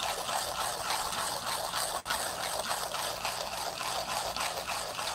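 Millwright hand coffee grinder being cranked, its burrs crunching through coffee beans for an espresso dose in a steady run of fine, rapid crackling strokes, with a brief break about two seconds in.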